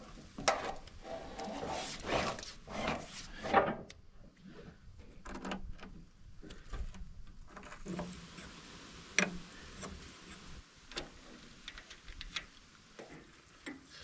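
Rubber hydraulic hoses being pulled and fitted on a bulldozer: hoses rubbing and knocking against the steel frame and brackets, with scattered clicks and taps of metal fittings and tools. The knocks are loudest in the first few seconds, then it settles to lighter taps.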